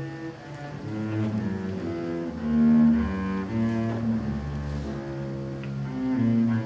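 Double bass played with the bow: a slow line of held low notes, each changing to the next every half second to a second.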